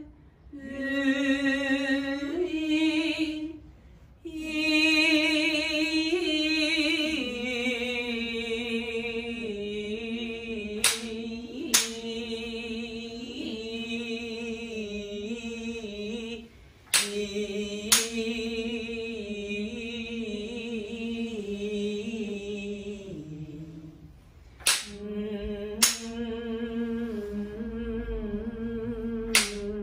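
A woman singing a slow shirabyoshi song unaccompanied, on long held notes that step slowly in pitch with a slight waver, pausing briefly for breath now and then. Pairs of sharp knocks about a second apart cut in three times, and once more near the end.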